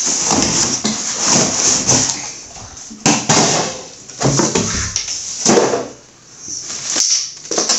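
Packaging rustling and crinkling in irregular surges as the next cookware piece is handled and unwrapped, with a few light clicks and knocks.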